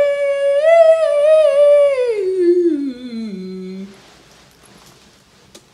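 A woman's voice singing one long wordless note. The note is held high with a slight waver, then slides down in pitch and stops about four seconds in.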